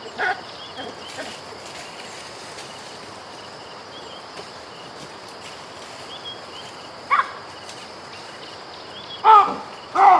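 A baboon giving short, pitched calls: once just after the start, once about seven seconds in, and twice louder near the end. Behind them are a steady insect drone and faint bird chirps.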